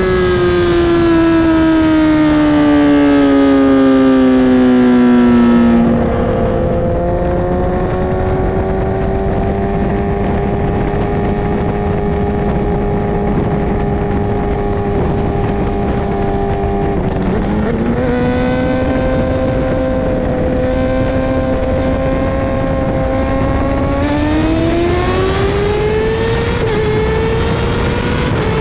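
Kawasaki ZX10R inline-four sportbike engine running through a Brocks Performance titanium CT megaphone exhaust. The revs fall steadily over the first six seconds, then hold steady, shift slightly about seventeen seconds in, and climb again about twenty-four seconds in.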